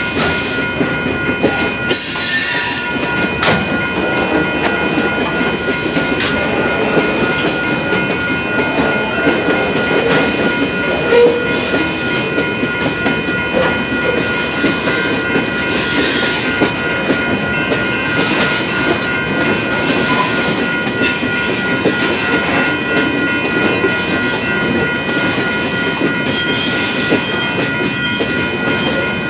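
BNSF freight train rolling steadily through a grade crossing, its wheels clattering over the rails. The crossing's warning bell keeps up a steady ringing over the train noise.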